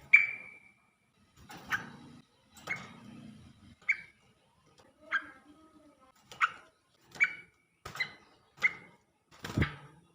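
Sooty-headed bulbul (trucukan) singing: a run of short, separate chirping phrases, roughly one a second.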